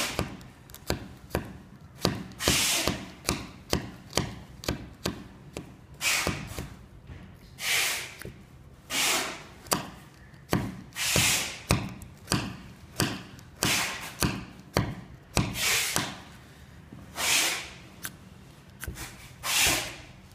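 Ferrocerium fire-starter rod of a paracord survival bracelet struck again and again with its scraper, throwing sparks onto tissue to light it. The longer, hissing scrapes come about every two seconds, with short clicks and taps between them.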